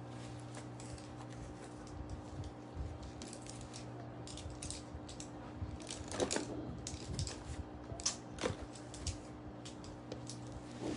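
Scattered light clicks and taps of makeup cases, brushes and small items being handled, over a steady low hum.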